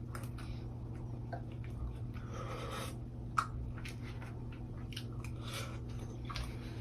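A person chewing food, with scattered small clicks and knocks, over a steady low hum; one sharper click comes a little past halfway.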